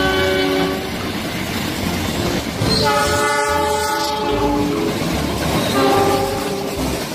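Diesel locomotive's multi-tone air horn sounding a chord in separate blasts: a long one about three seconds in and a shorter one near six seconds, over the rumble of a passing train.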